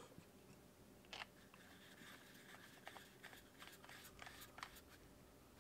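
Near silence, broken by faint, irregular clicks and crackles from about a second in until near the end.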